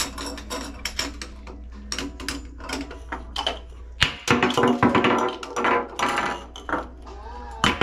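Short, sharp clicks and scrapes of a screwdriver working at a tub/shower valve handle's escutcheon. About four seconds in, after a louder click, music with a pitched tune takes over and is the loudest sound.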